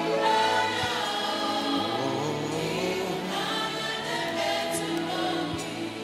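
Gospel choir singing slow, held notes together.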